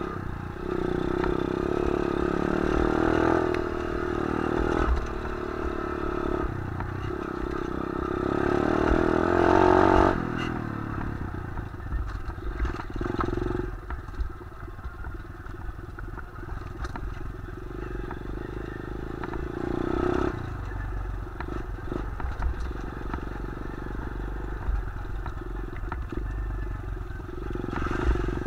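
A 125cc single-cylinder pit bike engine being ridden along a rough dirt trail: the revs build to the loudest point about ten seconds in, then ease off to lower, steadier running, with brief pickups around twenty seconds and again near the end.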